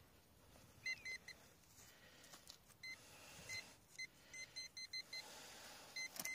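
Short, high electronic beeps from a metal detector: a quick chirp and three beeps about a second in, then a string of beeps that comes faster, about five a second, the detector signalling a metal target in the dug hole.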